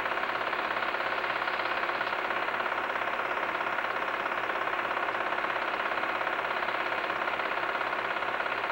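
Film projector running: a steady, fast, even mechanical clatter from the film advance and shutter.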